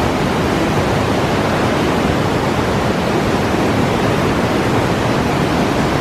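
Fast mountain river swollen with snowmelt, rushing loudly in a steady torrent.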